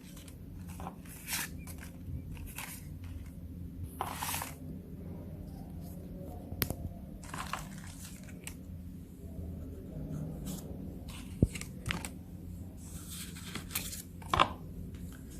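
Cardboard game cards being handled and flipped over: scattered short rustles and light clicks of card stock, over a low steady hum.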